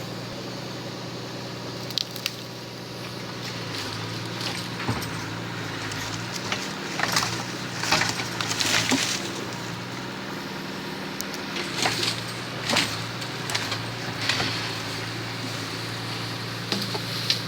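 Engine running steadily to drive a Munck forestry crane's hydraulics, with scattered sharp wooden knocks and cracks, several in a cluster about halfway through.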